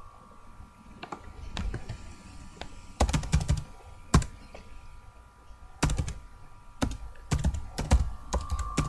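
Typing on a computer keyboard as a web address is entered: a few light taps at first, then short bursts of sharp keystrokes from about three seconds in.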